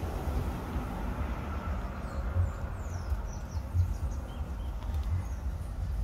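Steady low outdoor rumble, with a few faint high bird chirps about two to four seconds in.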